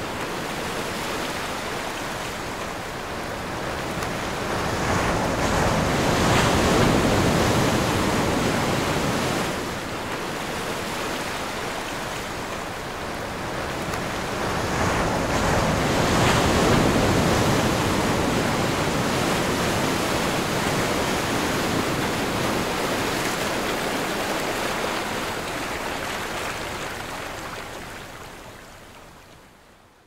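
Ocean surf: a steady wash of breaking waves that swells louder twice, about 6 and 16 seconds in, then fades out over the last few seconds.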